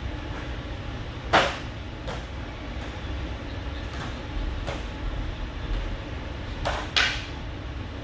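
A steady low rumble with a few short, sharp scrapes or knocks, the two loudest about a second and a half in and near the end.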